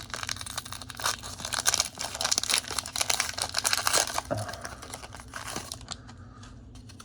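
Foil Pokémon card booster pack wrapper being torn open and crinkled, a dense crackling that fades out about six seconds in.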